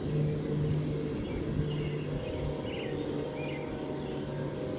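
EMD 567 diesel prime mover in a Herzog rail-train power car, running with a steady drone as the train approaches. A few short bird chirps sound over it.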